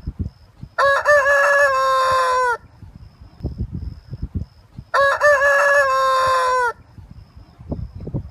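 A rooster crowing twice, about four seconds apart; each crow lasts about two seconds and drops in pitch at the end.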